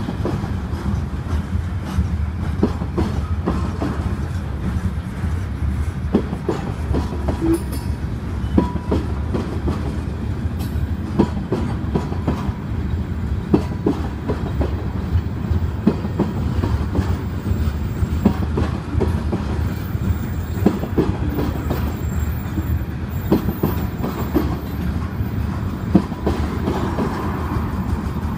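CSX freight train of hopper and tank cars rolling slowly past: a steady low rumble with frequent irregular clacks and knocks from the wheels on the rails.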